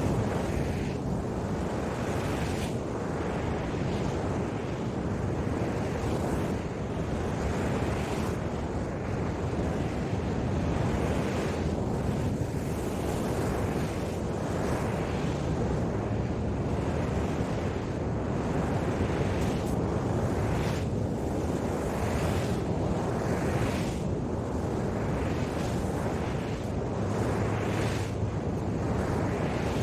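Ocean surf breaking and washing on the shore in slow surges, with wind rumbling on the microphone.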